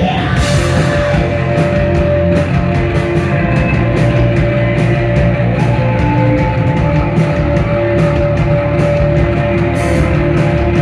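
A rock band playing live at full volume: distorted guitars holding long sustained notes over heavy drums, with no vocals.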